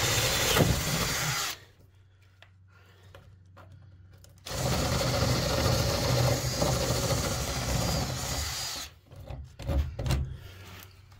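Power drill boring holes with bits that are dull. It runs in two goes: the first stops about a second and a half in, and the second starts about four and a half seconds in and runs for about four seconds. A few short knocks follow near the end.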